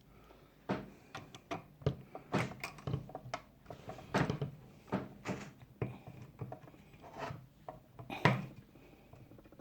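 Irregular clicks and knocks of a screwdriver and small parts being handled on a graphics card as its screws are worked on, with one louder knock near the end.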